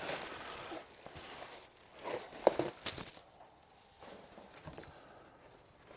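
Plastic-wrapped foam packing and paper rustling and crinkling as they are pulled out of a cardboard box, with a couple of sharp clicks about two and a half seconds in, then quieter handling.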